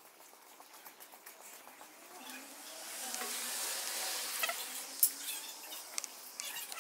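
Rustling of leaves and handling noise as the phone brushes past a shrub. The hiss swells about two seconds in and fades after five, with scattered light clicks and one sharp click about five seconds in.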